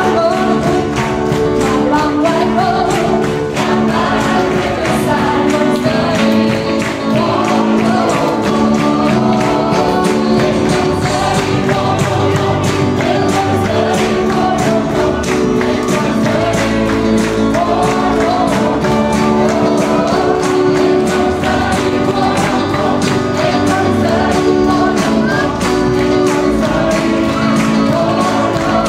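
Gospel choir singing over a steady beat.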